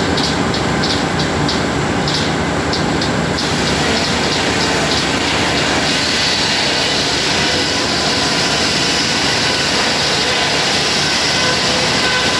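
Sawmill machinery running steadily and loudly, with a rapid rhythmic ticking for the first few seconds that then gives way to a steady mechanical noise.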